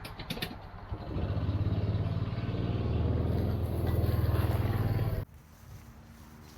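A small vehicle engine running steadily, preceded by a few sharp clicks at the start. It stops abruptly about five seconds in, leaving a quieter low hum.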